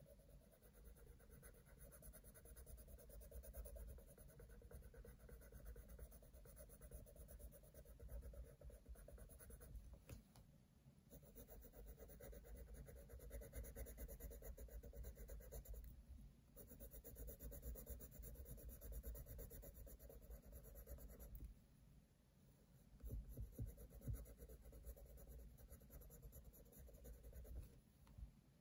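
Faint scratching of a black coloured pencil on paper in continuous shading strokes, stopping briefly a few times as the pencil lifts.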